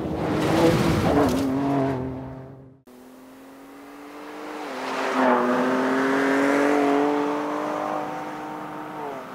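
Ford Ranger Raptor's 3.0-litre twin-turbo EcoBoost V6 driven hard off-road, its engine note mixed with a loud rushing noise for the first couple of seconds. After a sudden cut about three seconds in, the engine builds again and its pitch climbs slowly as it pulls, then drops near the end.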